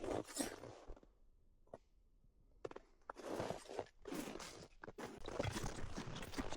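Footsteps crunching in snow. They stop for about a second and a half shortly after the start, then resume and come faster toward the end.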